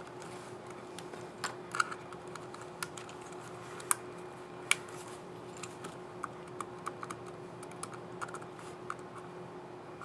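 Irregular plastic clicks from the keys of an HP EliteBook 840 G8 laptop keyboard as a keycap and its scissor mechanism are handled and pressed, a few sharper snaps among lighter taps. A faint steady hum runs underneath.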